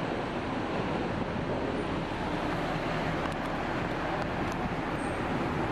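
Steady engine noise from a passenger ferry running while moored at the pier, with a few faint clicks about halfway through.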